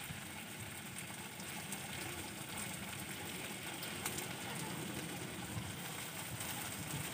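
Chopped hotdog and quail eggs frying in a wok over a wood fire: a steady sizzling hiss with scattered small crackles.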